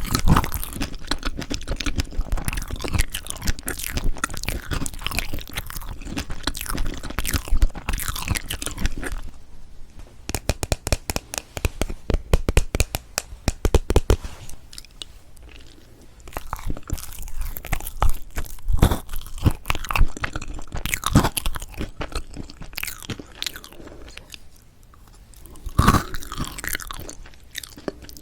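Close-miked chewing and mouth sounds of someone eating strawberry chocolate fresh-cream cake, full of small sticky clicks and crackles. The chewing is dense at first, then comes as a quick run of crisp clicks and later in separate bursts.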